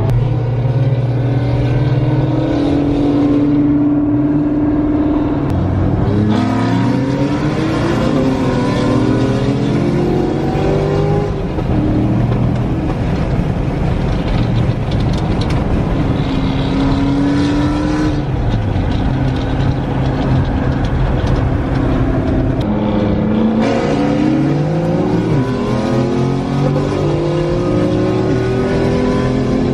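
Several car engines running together at a street car meet, some holding steady while others rev, their pitch repeatedly climbing and falling.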